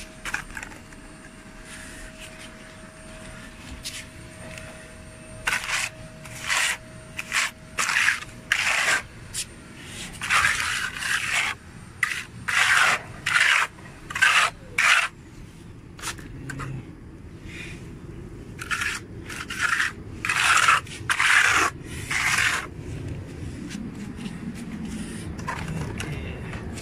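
Hand trowel scraping and smoothing wet cement plaster over a concrete surface, in a run of short, quick strokes that starts about five seconds in and stops a few seconds before the end.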